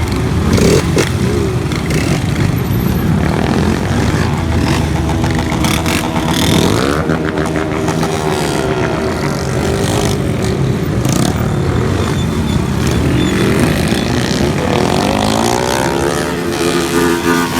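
Several motorcycle engines running and revving together, their pitches repeatedly rising and falling and overlapping.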